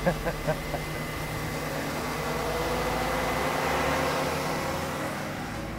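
2008 GMC Sierra 1500's engine idling steadily, running again on its newly fitted alternator.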